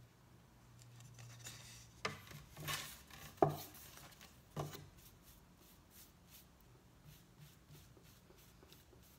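Paintbrush work on a thin plywood sign board. A few sharp taps and scrapes come between about two and five seconds in, then soft, repeated brush strokes across the wood.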